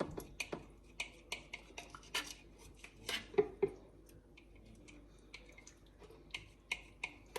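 A utensil clinking and scraping against a baking dish while lasagne filling is spread: a scatter of light, irregular clicks with a quieter stretch in the middle.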